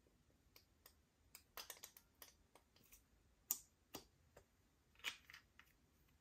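Slime being squeezed and kneaded by hand, giving scattered sticky clicks and small pops at an uneven pace, with a quick cluster about a second and a half in and the sharpest pop about halfway through.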